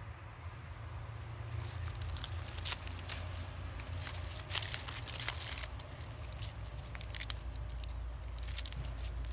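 A dog chewing dry sticks with its nose in dead leaves: a run of irregular crunching, snapping crackles that starts about a second and a half in.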